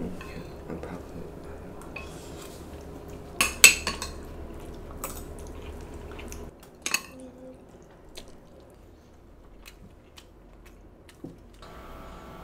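Metal spoons clinking and scraping against ceramic plates and bowls during a meal: a few sharp clinks, the loudest about three and a half seconds in, then fainter ticks.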